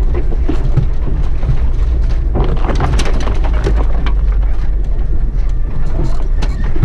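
A 4x4 driving slowly over a rough, stony track: a steady low rumble with frequent knocks and clatters as it rides over the ruts and stones.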